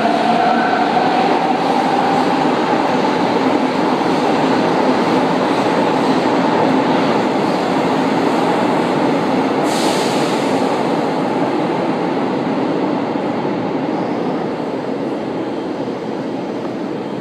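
São Paulo Metro Line 1 train running into the platform and braking to a stop, with steady wheel and running noise that slowly fades as it slows. A faint whine sounds at the start, and a short sharp hiss of air comes about ten seconds in.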